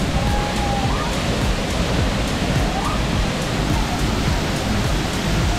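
Waterfall pouring down a rock face into a pool close by: a loud, steady rush of falling and splashing water.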